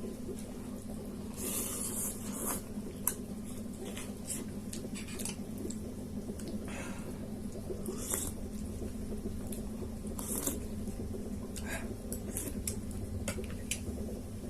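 Someone eating very spicy noodles close to the microphone: wet chewing and slurping with small clicks, broken by several short hissing breaths drawn in against the heat of the chilli.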